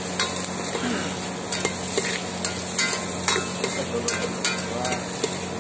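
Chopped onion and tomato sizzling in hot oil in a pot while a metal ladle stirs them. The ladle scrapes and clinks against the pot every half second or so.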